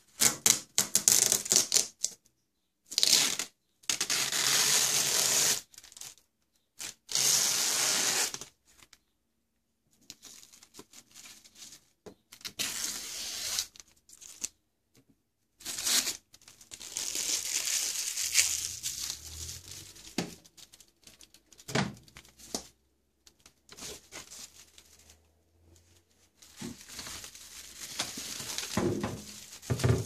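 Adhesive tape ripped off a microwave oven's casing in a series of short strips, one after another with pauses between. From about halfway through, the protective plastic film rustles and crinkles at length as it is pulled away.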